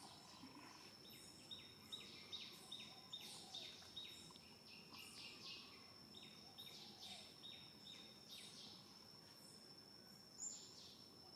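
Faint outdoor ambience: a bird repeating a short high note about three times a second in two runs, over a steady high insect drone.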